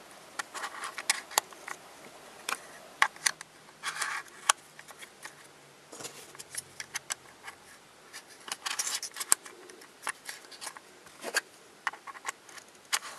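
Plastic pieces of a Twist Ball spherical puzzle being slid and snapped into place by hand: irregular small plastic clicks and short scraping rubs.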